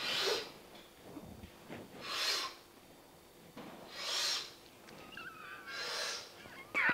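A man breathing hard in and out, four heavy breaths about two seconds apart, with a faint whimper near the end.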